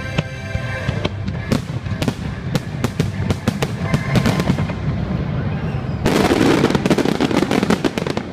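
Fireworks going off: a run of sharp, separate bangs from aerial shells, building about six seconds in to a dense barrage of rapid reports, the loudest part. Show music plays underneath.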